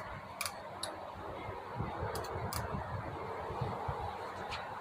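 A few short, sharp clicks and taps, about five spread over the stretch, over a faint low background rumble; the band saw motor is not running.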